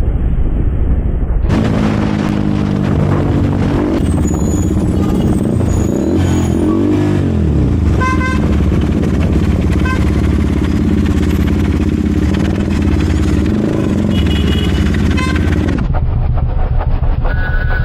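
KTM RC 200's single-cylinder engine running loud through an SC Project aftermarket exhaust while riding in traffic, its revs rising and falling. Short horn beeps from other vehicles come a few times.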